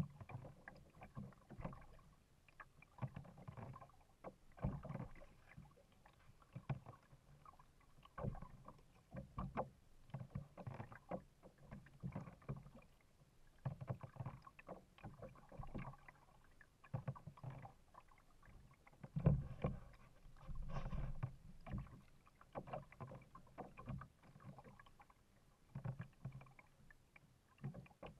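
Kayak paddle strokes: splashing water and light knocks come in irregular bursts every second or two, with a few short pauses, loudest about two-thirds of the way through.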